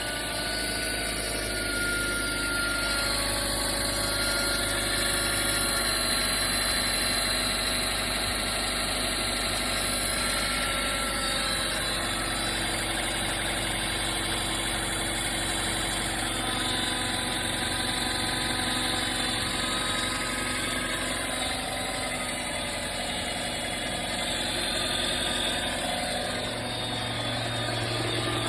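Mitsubishi Pajero Mini H58A's 660 cc four-cylinder engine idling steadily after a start, with an abnormal noise among thin high tones over the engine hum. The owner suspects either the power steering pump or the water pump.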